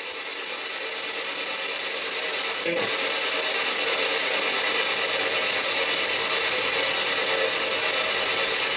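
A PSB7 spirit box sweeping rapidly through radio stations, giving a continuous rasping static hiss. It grows louder over the first few seconds, with one brief blip of sound about three seconds in.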